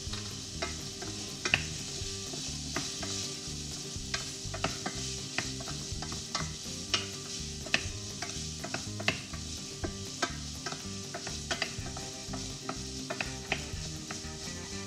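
Food frying in a pan with a steady sizzle, and irregular sharp clicks and taps from a utensil stirring it.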